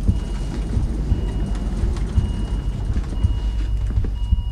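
A hospital patient monitor sounds a high electronic tone in long beeps of nearly a second each with short gaps between, and a second, lower tone joins near the end. Underneath is a steady, unevenly pulsing low rumble.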